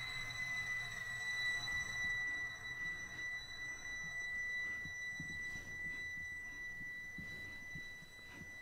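Electronic sound-design tone on a film soundtrack: a steady, high-pitched whine held throughout, over a faint low rumble.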